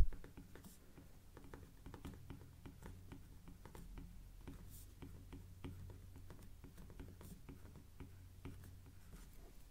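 Faint, irregular taps and scratches of a stylus writing on a tablet, over a steady low hum.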